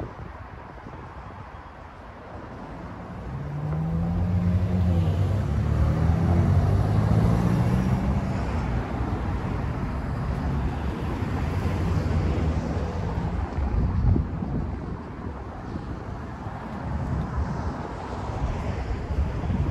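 City street traffic noise. A few seconds in, a vehicle engine grows louder and accelerates past, its pitch rising and dropping as it changes gear, and then it fades back into the traffic. A single sharp knock comes about two-thirds of the way through.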